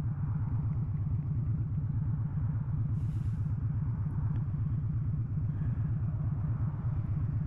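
Motorcycle engine idling at a standstill, a steady, even pulsing rumble, with a brief hiss about three seconds in.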